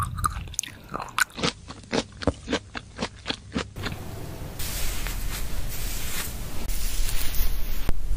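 A person chewing a grape: about three chews a second for some four seconds. A steady, soft noise follows for the rest of the time.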